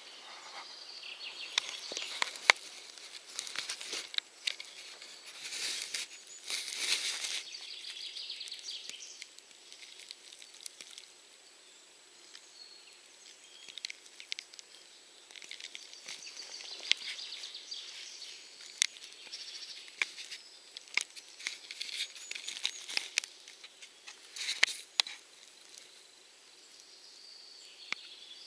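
Irregular small ticks and crackles of soil crumbs and spruce needles being scraped as a bumblebee digs into the forest floor, with a light hiss and a few louder bursts of rustling.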